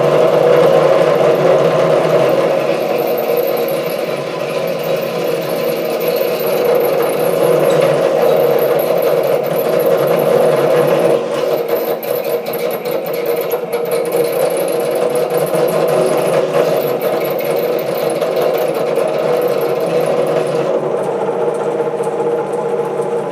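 SC2 mini lathe running at reduced speed while an HSS parting tool cuts 316 stainless steel: a steady motor and gear whine under a rough, grating cutting noise that does not sound good, a sign the parting cut is struggling, and the work ends up slipping in the chuck. The scraping turns more ragged about halfway through and the cutting noise drops away near the end while the lathe keeps running.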